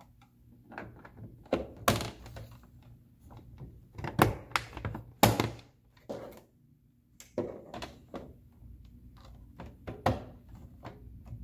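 Hard plastic pieces of a Frozen 2 Ultimate Arendelle Castle playset being handled and snapped into place: a dozen or so irregular knocks and clicks, the loudest about five seconds in.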